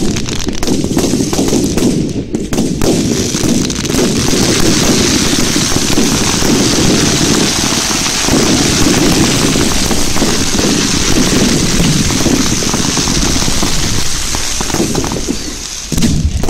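Fireworks display: a dense barrage of rapid bangs and crackling, fast enough to run together into a continuous rattle. It thins out near the end, with one more loud bang just before it finishes.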